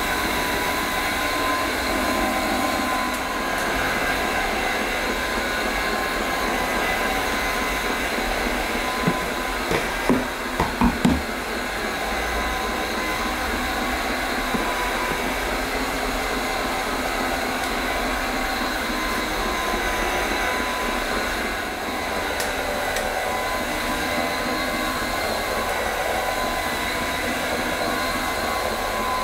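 AirCraft PowerGlide cordless hard floor cleaner running steadily, its twin motor-driven microfibre pads spinning as it is pushed over the floor tiles. A few short knocks come about ten seconds in.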